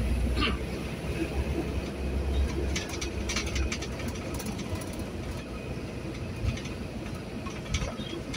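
Engine and road noise inside a moving vehicle's cab: a steady low rumble, stronger in the first few seconds, with a few light clicks and rattles about three seconds in.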